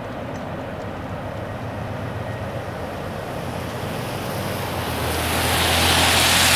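Freight train cars rolling past on the track with a steady rumble. A loud rushing noise swells up over the last two seconds.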